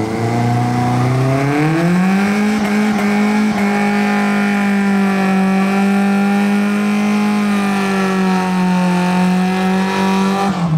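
Car engine revving hard during a burnout: the pitch climbs over the first two seconds, then is held steady at high revs, over a hiss of spinning tyres, and falls away as the driver lets off at the very end.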